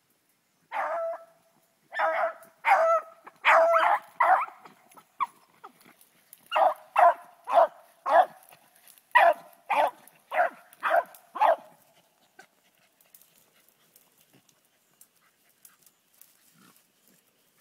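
A hunting dog barking, about fifteen short, sharp barks over some eleven seconds in two runs with a short break between them, then falling quiet.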